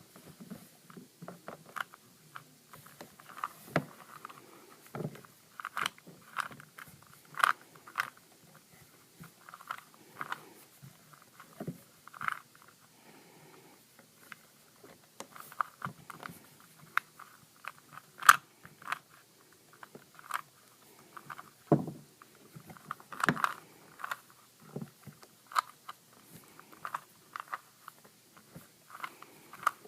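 Plastic clicks and clacks of a 3x3x3 Rubik's cube as its layers are turned by hand during a solve. They come in irregular runs of quick turns with short pauses between them.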